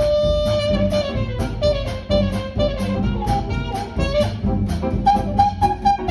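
Traditional New Orleans-style jazz band playing live: a trumpet carries the melody, opening on a long held note and then moving through shorter notes, over piano and a steady rhythm section.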